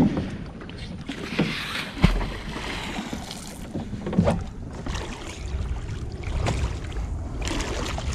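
Water sloshing and slapping against a floating plastic dock, with wind rumbling on the microphone. A handful of knocks come from a rope-tied fishing magnet being handled against the dock; the loudest, a dull thud, comes about two seconds in.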